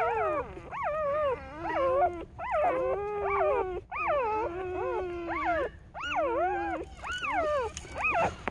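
A litter of newborn puppies crying: several high, wavering whines that overlap and follow one another almost without a break.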